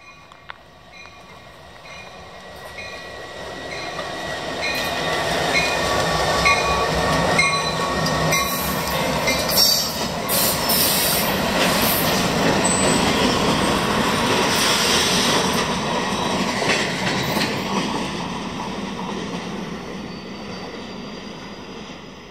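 A Union Pacific local freight, a diesel locomotive with two empty covered hopper cars, approaches, passes close by and fades away. The train's rumble builds over several seconds, peaks as the cars roll past with wheels clicking over the rail joints, then fades out. A bell rings about twice a second during the approach.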